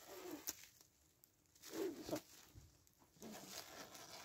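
Faint, intermittent rustling and crinkling of clear plastic stretch film being pulled and wrapped over a dome frame of tree branches, with a couple of short squeaks.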